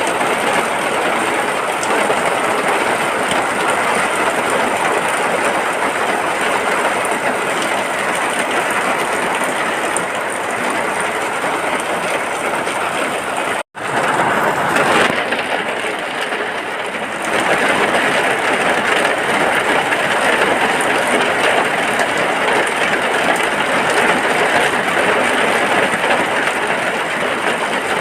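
Steady rain falling on a hut's roof, an even, unbroken hiss. It cuts out for an instant about fourteen seconds in, then carries on.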